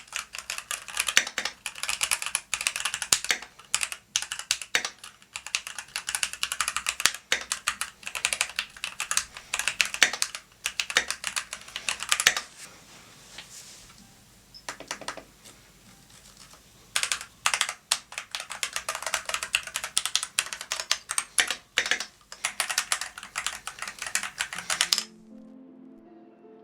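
Fast typing on a Keychron V1 75% mechanical keyboard with a steel plate and PBT keycaps: a dense run of key clacks. About halfway through there is a lull of a few seconds, broken only by a handful of keystrokes, and then the typing picks up again. Near the end the typing stops and soft music begins.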